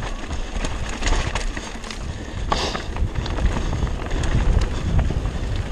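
Mountain bike riding over a rough, rocky trail: wind buffeting the microphone, with the bike rattling and knocking over the rocks.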